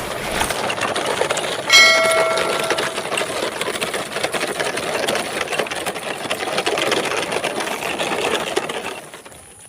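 Toy truck driving along with a fast, continuous mechanical rattle that fades out near the end. About two seconds in, a short horn-like tone sounds for about a second.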